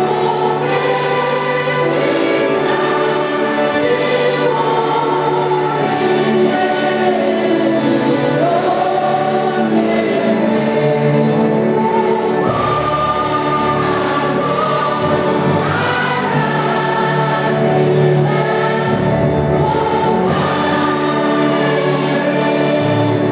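Choir singing a gospel hymn with instrumental backing and a steady bass line.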